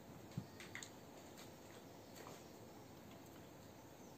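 Near silence with faint clicks and light scratches of a felt-tip marker writing on a whiteboard.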